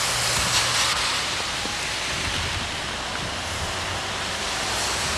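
Steady hiss of rain and traffic on wet streets, with a low hum underneath.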